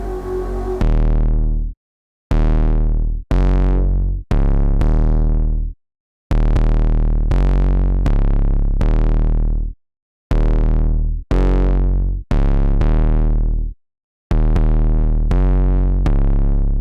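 Serum software synthesizer playing a rich bass preset: a repeating phrase of deep bass notes, each starting sharply and fading. The notes fall in groups of two short notes and one longer one, with brief silences between groups.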